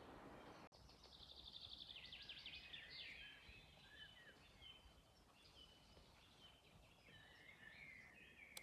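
Songbirds singing faintly: a rapid high trill in the first few seconds, then scattered chirps and a lower warbling phrase near the end. A soft rushing noise at the start breaks off abruptly under a second in.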